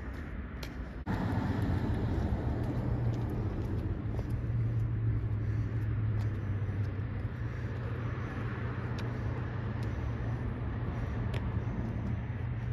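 A steady low mechanical hum, of the kind an idling engine or a large fan makes, starts abruptly about a second in and runs on without change in pitch.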